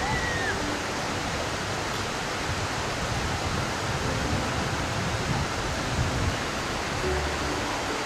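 Steady rush of a waterfall's water pouring over sandstone ledges and through rock channels.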